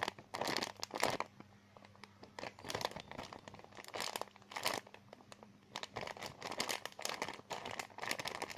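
Crinkling and rustling of plastic as a squishy is handled, in irregular bursts with short pauses between.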